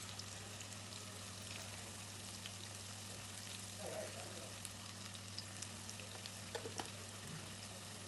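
Onions and ginger-garlic paste frying in sesame oil in a kadai: a faint, steady sizzle with a few light clicks, over a low steady hum.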